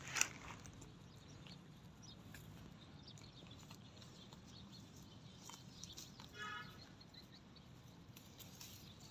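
Cattle grazing: faint, scattered crunches of grass being bitten and chewed, loudest just at the start, with one short high-pitched animal call about six and a half seconds in.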